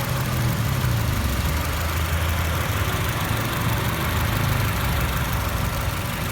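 Honda City's four-cylinder petrol engine idling steadily, heard close up in the engine bay while a water-and-vinegar mix is sucked into it for decarbonization.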